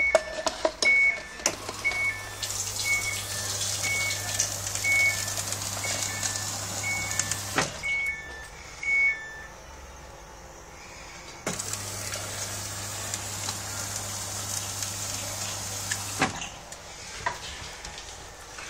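Samsung RS21 fridge freezer's water dispenser running twice: the inlet valve buzzing steadily with water hissing into a glass, each run stopping suddenly. A repeating electronic beep, alternating between two pitches about once a second, sounds through the first half.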